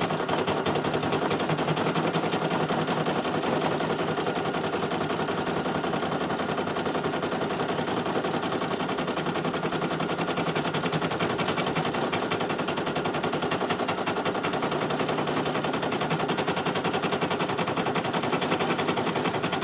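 Embroidery machine stitching steadily: a fast, even rattle of needle strokes that holds without change.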